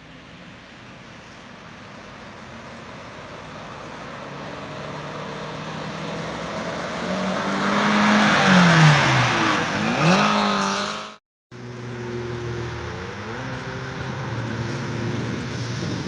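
Road traffic: a car approaches and passes close by, loudest about eight to ten seconds in, its engine note dropping in pitch as it goes past. After a brief cut, another vehicle's engine runs steadily over road noise.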